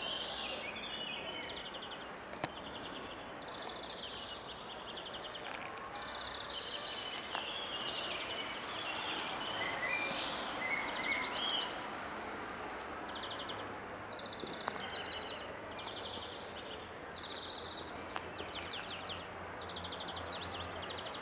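Birds calling outdoors: short trills and chirps, repeated every second or so, over a steady hiss of open-air background noise, with a few faint sharp ticks.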